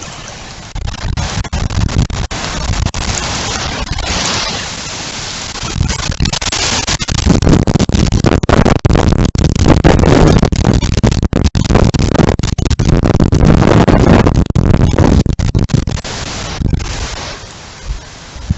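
Storm wind gusting hard across the microphone, a loud rushing and buffeting noise that builds about a second in, peaks through the middle and eases near the end.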